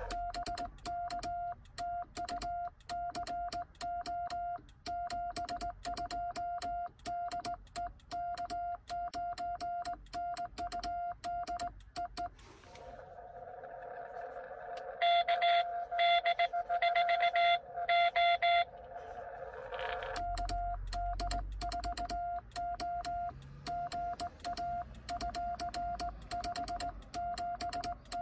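Morse code sent on a home-built cootie sideswiper key: the Xiegu X6100's sidetone beeps in a single steady pitch, with the key's contacts clicking at each element. About twelve seconds in the sending stops. Another station's Morse then comes in over band hiss from the radio's speaker, louder for a few seconds in the middle. Sending on the key resumes about twenty seconds in.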